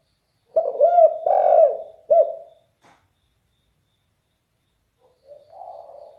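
Spotted dove cooing: a loud phrase of several arching coos starting about half a second in and lasting about two seconds, then one fainter coo near the end.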